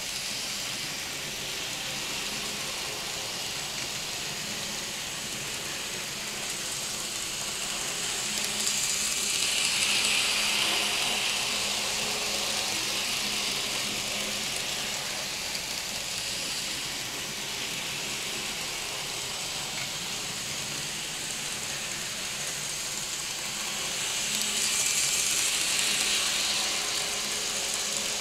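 N scale model train, two diesel locomotives pulling a string of freight cars, running along the track with a steady mechanical running noise of small electric motors and wheels, growing louder twice as the train passes close by.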